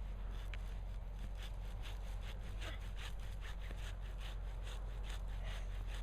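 Hand saw cutting through a Christmas tree's trunk in quick back-and-forth strokes, about three a second, starting about a second in.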